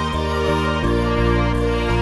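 Background music of sustained, even tones with a soft regular pulse, changing chord just under a second in.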